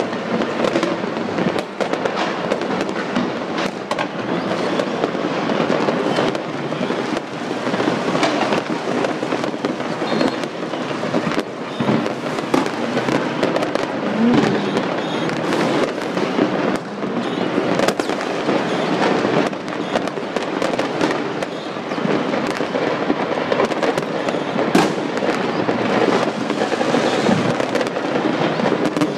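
Fireworks and firecrackers going off all over a city in a dense, unbroken crackle, thick with many sharp bangs and pops.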